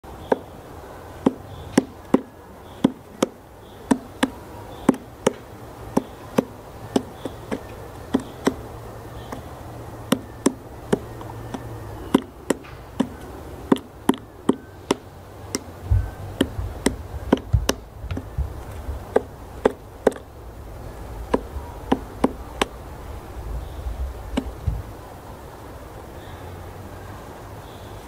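Female black woodpecker chiselling into a pine stump's roots with single hard knocks, irregular, about one or two a second, stopping a few seconds before the end; she is digging for bark beetles. A low rumble sits underneath from about halfway.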